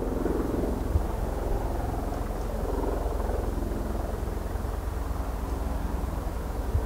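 Helicopter turbine running on the ground as the main rotor spins up: a steady low rumble.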